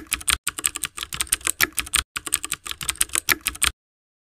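Computer keyboard typing sound effect: rapid key clicks in three runs with brief breaks between them, stopping shortly before the end.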